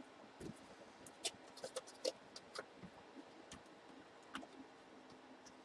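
Faint, scattered light clicks and taps at an irregular pace, the sound of objects being handled.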